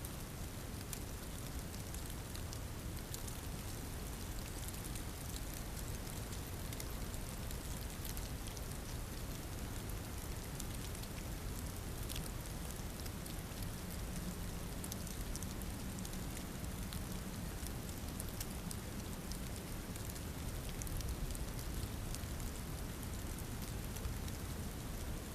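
Steady storm ambience: an even hiss of falling precipitation with many fine ticks, like rain or sleet pattering on a surface.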